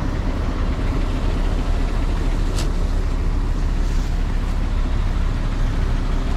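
Diesel coach bus running steadily, a continuous low rumble, with a brief hiss about two and a half seconds in.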